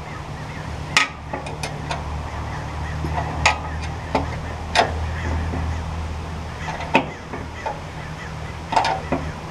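Sharp metallic clicks of a box-end wrench and nut against the steel sawmill frame as a nut is started on a bolt by hand, a handful of them a second or two apart, over a steady low hum.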